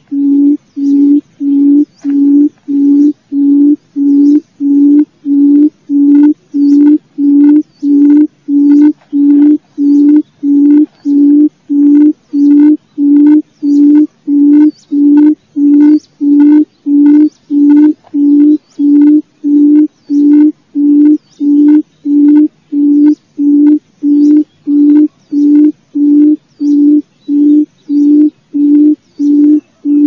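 Barred buttonquail's booming call, the female's lure call: a low hoot repeated evenly about one and a half times a second without a break, played to draw buttonquail in.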